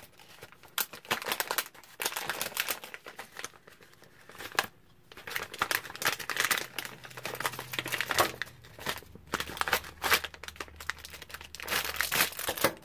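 Plastic and foil packaging crinkling as it is handled, in irregular rustles with a short lull about five seconds in.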